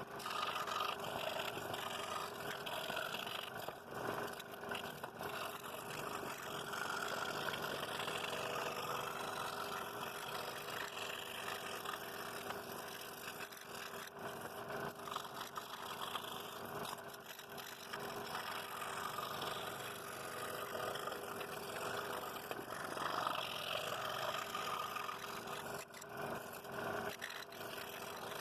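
Scroll saw running with a No. 5 reverse-tooth blade, cutting a wooden board: a steady motor hum under a cutting noise that swells and fades a little.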